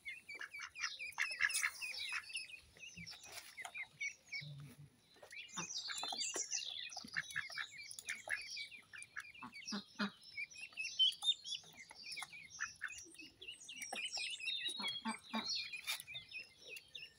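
Indian runner ducklings peeping: a busy stream of short, high chirps, several a second, with a brief lull about four seconds in.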